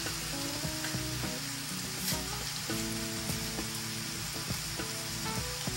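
Stir-fried bell peppers, onions and mushrooms sizzling steadily in a frying pan on a gas burner, under quiet background music with held notes.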